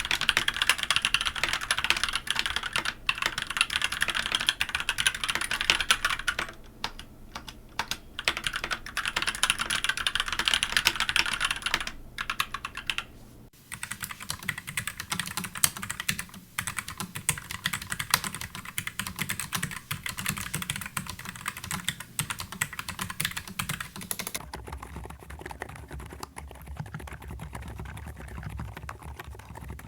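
Typing on three mechanical keyboards in turn, a fast run of key clicks throughout. First the Pwnage Ultra, bright and clacky, with two short pauses. About halfway through, the Azio Cascade 98 Slim takes over, quieter and deeper. Near the end comes the Epomaker RT100, with a deeper thock.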